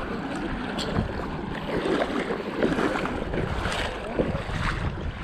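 Wind and lake water lapping against a fishing boat, with wind buffeting the microphone.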